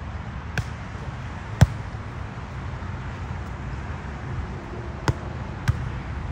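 A volleyball being struck during play: four sharp smacks, the second about a second in and the loudest, then two more close together near the end, over a steady background din.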